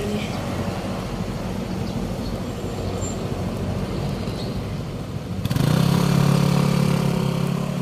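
Street traffic at an intersection, vehicle engines running. About five and a half seconds in, a louder, steady engine drone starts abruptly and holds.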